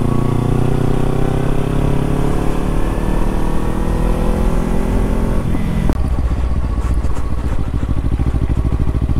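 Kawasaki Ninja 300's parallel-twin engine under way, its note rising steadily as the bike accelerates for about five seconds, then dropping abruptly to a lower, pulsing note.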